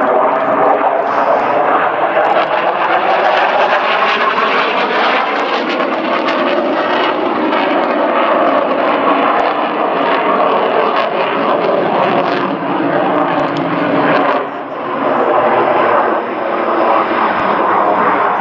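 MiG-29 Fulcrum jet fighter flying its display, its twin RD-33 turbofan engines giving a loud, steady jet noise with faint tones running through it. The level dips briefly about fourteen and a half seconds in.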